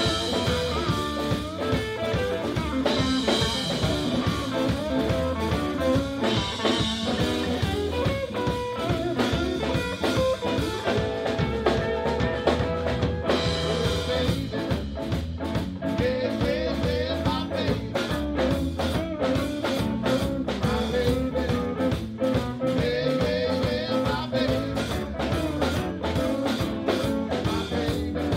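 Live blues band playing: electric guitars and bass over a drum kit keeping a steady beat.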